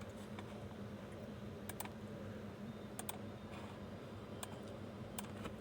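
Faint, scattered light clicks, several of them in quick pairs, over a steady low hum.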